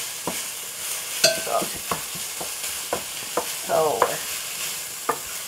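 Metal spoon clicking and scraping against a pot as spoonfuls of dumpling batter are dropped into boiling water, over a steady sizzle of sausage frying in a pan.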